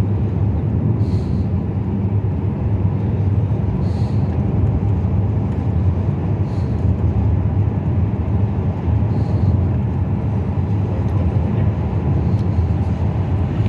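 Car cabin road noise while driving: a steady low rumble of engine and tyres.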